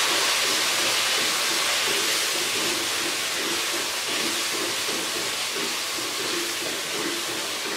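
Chicken pieces and spices frying in oil in an aluminium pot, a steady sizzle that fades slightly, while a wooden spatula stirs them around the pot. The chicken is being bhuna'd, browned with its masala.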